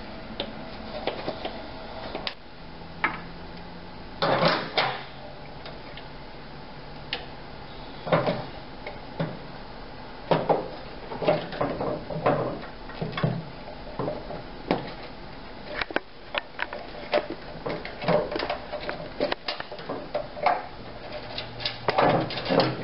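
Hand tools clicking and clanking against metal in irregular bursts with short pauses: pliers working hose clamps off a coolant hose, then tools on the motorcycle's engine area.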